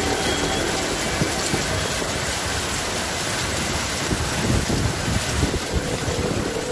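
Steady rushing noise of heavy rain and floodwater as cars wade through a flooded street, with wind buffeting the microphone in low, uneven rumbles from about four seconds in.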